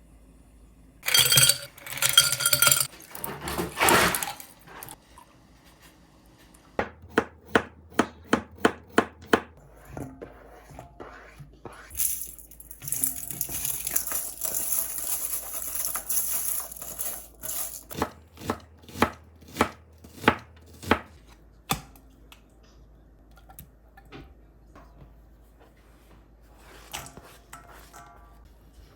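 Knife chopping food on a cutting board in two quick runs of strokes, about four a second. Loud kitchen clatter comes in the first few seconds, and a steady hiss runs for several seconds between the runs.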